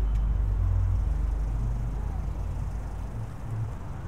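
City street traffic: a motor vehicle's low engine rumble that fades as it moves away.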